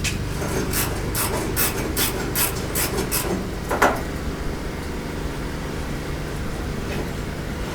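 Hand work on the van's front metal parts: a run of short scraping clicks, about two or three a second, then one louder scrape near four seconds, over a steady low hum.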